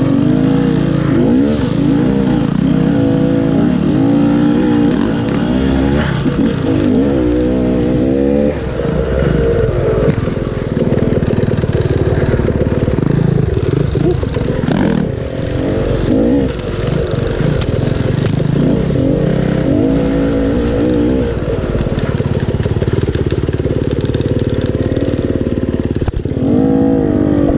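Dirt bike engine running loud with the throttle repeatedly opened and closed, its pitch rising and falling again and again.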